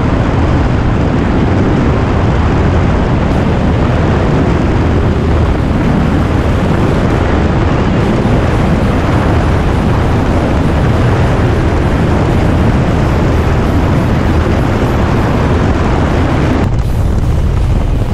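Loud, steady rush of wind and engine noise buffeting a camera mounted outside a single-engine high-wing plane as it comes in to land. The high hiss eases near the end, as the plane rolls along the runway.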